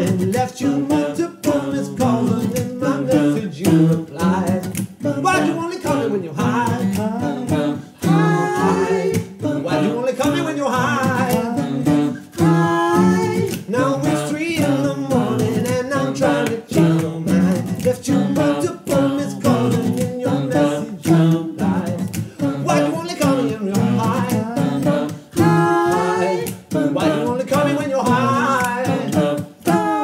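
A group of male voices singing in close harmony, with an acoustic guitar strummed along.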